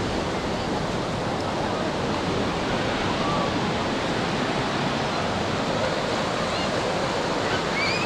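Steady sea surf, waves breaking and shallow water washing over sand, with faint distant voices of beachgoers in the background.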